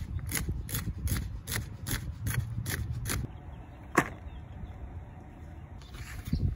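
Kitchen knife chopping celery on a thin plastic cutting mat laid on a table, a steady run of cuts about two and a half a second for some three seconds. A single sharp knock comes about four seconds in, and cutting starts again near the end, now on carrots.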